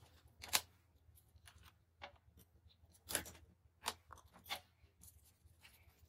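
Handling noises: a few sharp clicks and light rustles as clear plastic BIC Cristal ballpoint pens are picked up and knock against one another and the table, with a crumpled paper tissue handled. The loudest click comes about half a second in, with a cluster of clicks between about three and four and a half seconds in.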